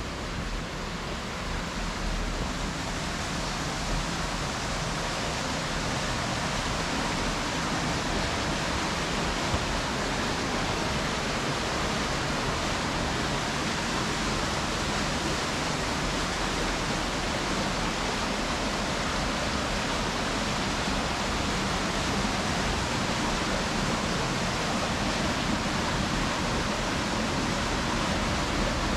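Rushing water: a steady, even roar of water flowing over a cascade, growing a little louder in the first couple of seconds and then holding level.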